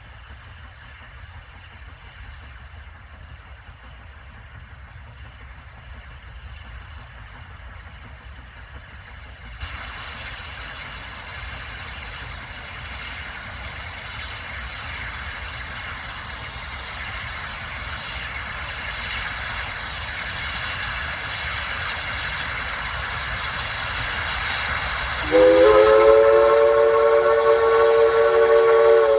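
East Broad Top #16, a 2-8-2 steam locomotive, approaching with its freight train, its rumble and hiss growing steadily louder. About 25 seconds in it blows a long, loud blast on its steam whistle, several notes at once after a short upward slide at the start: the signal for the road crossing.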